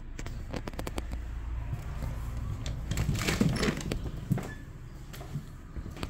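An interior door being opened by its knob: a few light knocks, then the knob rattles and the door scrapes, with a sharp click of the latch about four seconds in.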